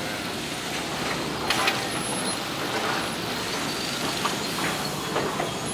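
Steady din of woodworking mill machinery and chain conveyors running, with scattered sharp knocks and clatters of lumber boards, the loudest about a second and a half in.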